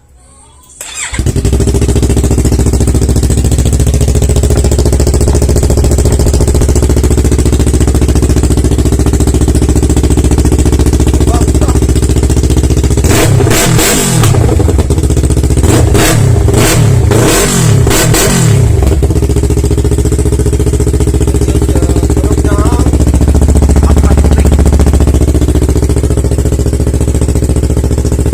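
Yamaha R3's parallel-twin engine starting about a second in and idling, with the stock muffler taken off. Around the middle it is revved in about five quick throttle blips, then settles back to a steady idle.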